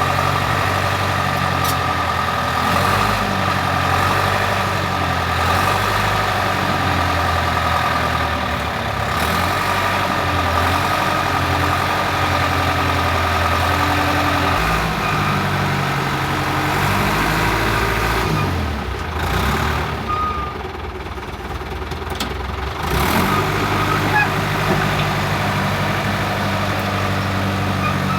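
Caterpillar D4C bulldozer's diesel engine running after its crankshaft and bearing rebuild, its speed rising and falling several times under a steady high whine. The engine sound drops and goes quieter for a few seconds a little past the middle, then picks back up.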